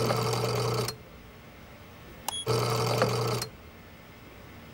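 Small electric drive motors of the fly-powered Ecobot robot whirring in short spurts: a run that stops about a second in, then a click and another run of about a second starting midway. The robot is moving a short way at a time on energy stored from digesting flies.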